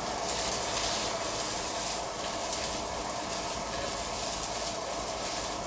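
Diced sweet potatoes sizzling in a frying pan as the pan is shaken over the hob, a steady hiss.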